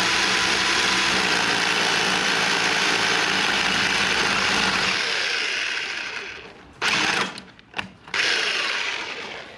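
Electric power drill boring into a wall, running steadily under load, then stopping about six seconds in, followed by two short bursts of drilling.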